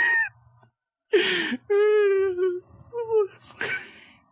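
A person laughing hard in a wheezing fit: breathy gasps broken by a couple of held, high squeaky tones.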